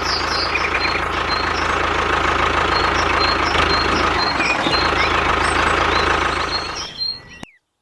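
A steady engine-like running noise with a low hum and repeated short high chirps, which cuts off abruptly near the end.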